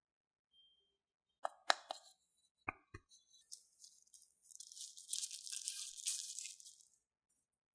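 Packaging being handled during an unboxing: a few light clicks and two soft thumps, then about two and a half seconds of rustling and tearing packaging.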